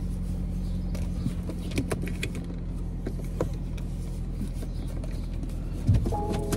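Steady low hum of a car's running engine heard inside the cabin, with light scattered crackling from a sticky lint roller rolled over clothing and a seatbelt. Music starts near the end.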